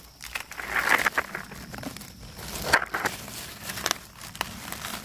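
Dry fallen leaves rustling and crackling in irregular bursts as a hand moves through the leaf litter to pick mushrooms.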